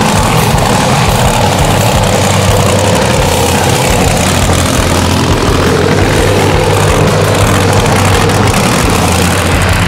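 Big mega truck engine running at idle, steady and loud.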